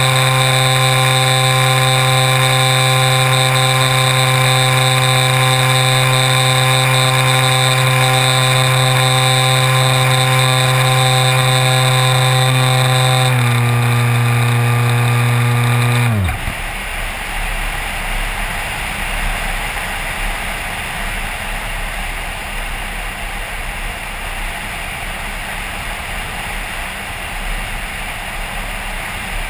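Multiplex Xeno RC plane's electric motor and propeller whining at a steady pitch, picked up by the camera mounted on the airframe. About thirteen seconds in the pitch drops a step, and a few seconds later it winds down and stops: the motor is switched off. After that only wind rushes over the microphone as the plane glides.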